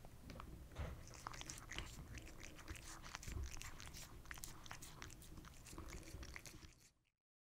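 Abyssinian cat eating from a ceramic bowl: a quiet, irregular run of crunching and small clicks as it chews and licks at the food. It fades out about seven seconds in.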